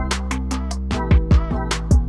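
Background music with a steady electronic beat: deep kick-drum thumps, crisp hi-hat-like strikes and held bass and synth notes.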